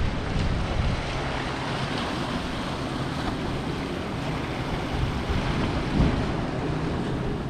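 Ocean surf washing against jetty rocks in a steady rush, with wind buffeting the microphone.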